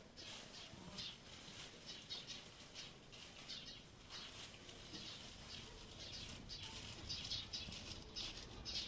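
Faint, quick high chirps of small birds, coming in short irregular clusters throughout.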